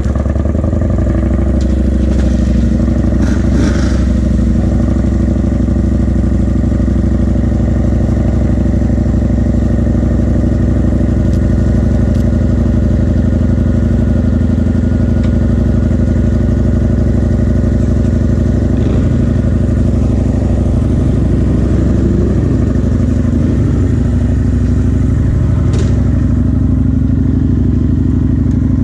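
Motorcycle engine running steadily and loudly, started moments before, with a slight wavering in pitch about two-thirds of the way through and a few faint clicks.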